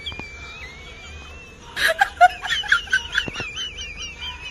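A person laughing in a quick run of short bursts about two seconds in, over a faint, steady, wavering high whine.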